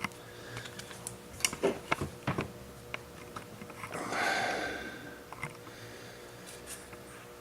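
Handling noise: a scatter of light clicks and knocks in the first few seconds, then a soft rustle about four seconds in.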